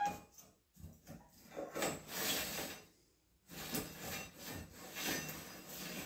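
Steel sawmill band blade rubbing and scraping as it is handled and shifted in the blade sharpener. A couple of clicks at the start, then two longer rasping stretches with a short pause between them.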